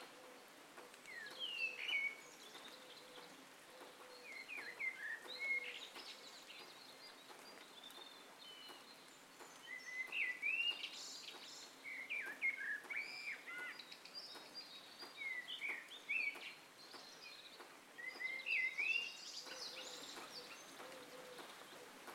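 Red-vented bulbul calling: short, bubbly whistled phrases of quickly rising and falling notes, coming in bursts every few seconds over a steady background hiss.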